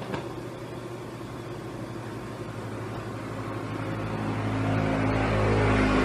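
A motor running with a steady low hum of several even tones, growing louder through the second half.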